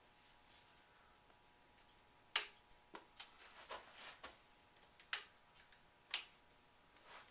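A series of faint, sharp clicks and knocks, about seven, irregularly spaced, the loudest two or three a couple of seconds apart, over quiet room tone with a faint steady hum.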